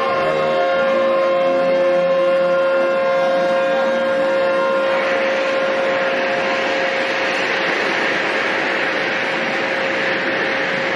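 A ship's horn holds one long steady note while a large ship is side-launched into the water. About five seconds in, a loud rushing of water and spray rises under the horn as the launch wave surges against the quay.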